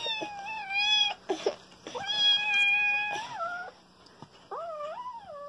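Kitten meowing three times, each call long and high.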